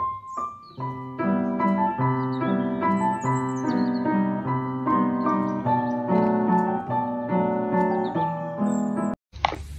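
Piano music: a steady run of notes that stops abruptly near the end.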